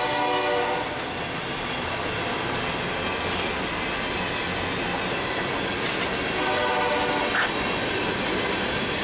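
Freight train of open-top coal cars rolling past, a steady rush of steel wheels on rail. A locomotive's multi-chime horn chord is sounding at the start and breaks off within the first second. It sounds again for about a second some six seconds in.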